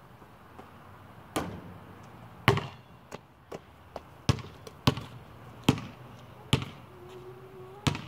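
Basketball bouncing on a concrete court: a run of about nine sharp bangs, unevenly spaced roughly every half second to a second.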